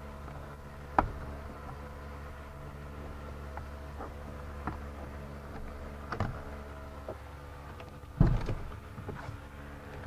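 Plastic door trim panel being pried off by hand and with a plastic pry tool: a sharp click about a second in, a few lighter clicks of clips and plastic, and a heavier knock and rustle near the end. A steady low hum runs underneath.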